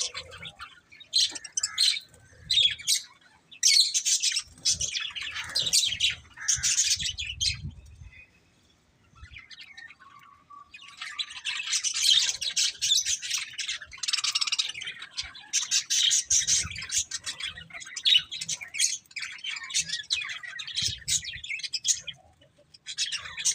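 Budgerigars chattering and chirping in rapid, irregular bursts. There is a lull of a few seconds about a third of the way in, then a longer stretch of busy chatter.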